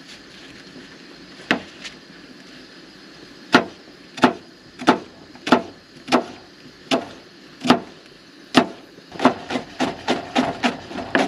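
Kitchen knife chopping a shallot on a plastic cutting board: sharp single knocks about every two-thirds of a second, quickening to a faster run of chops near the end.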